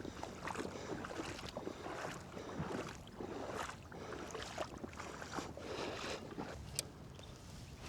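River water sloshing and splashing in irregular surges, about one every half second to a second, as a person wades in waders.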